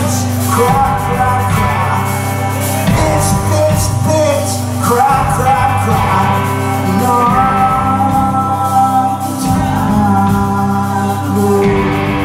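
Live rock band playing, with electric guitars, drums and keyboard under a sung lead vocal.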